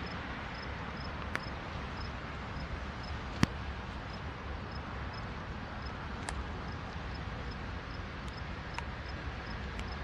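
Freight train's lead diesel locomotives approaching slowly, a steady low rumble, with a few sharp clicks, the loudest about three and a half seconds in.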